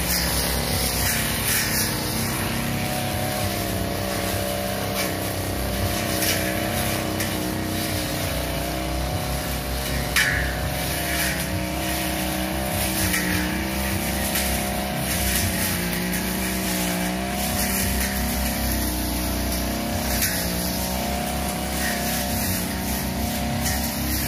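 Backpack two-stroke 328 brush cutter engine running at high speed while cutting grass with a long blade, its pitch wavering up and down as the load changes. One sharp click about ten seconds in.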